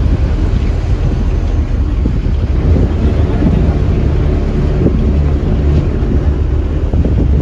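Mitsubishi bus diesel engine running under way, heard inside the cabin: a steady low drone with road noise, its engine note shifting a little in pitch.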